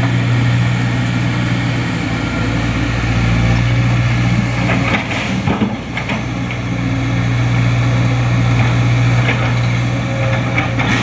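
Sumitomo SH210 hydraulic excavator's diesel engine running steadily under working load, with a few knocks and clatters of rock and metal in the middle and again near the end.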